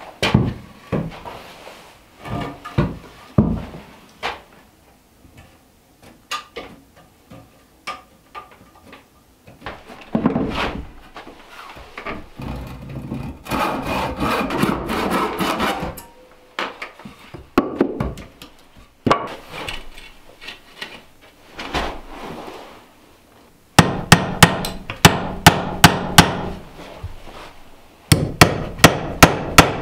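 A handsaw cutting a wooden board in a run of rasping strokes midway, with scattered knocks of wood before it. Near the end a hammer drives a nail into a wooden block in sharp, evenly spaced blows, about two a second.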